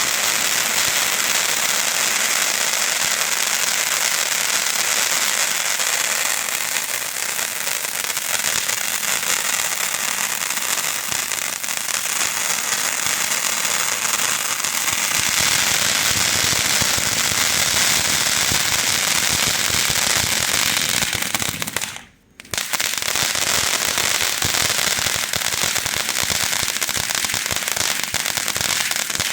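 Phantom Fireworks Funky Monkey firework fountain burning: a continuous loud hissing spray of sparks, thick with crackling. It drops out for a split second about three-quarters of the way through, then carries on.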